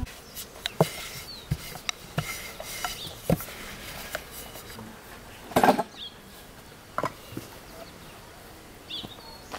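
Scattered light wooden knocks and clicks of a long wooden rolling pin being handled on a wooden dough board, the loudest a little past halfway, with a few short bird chirps.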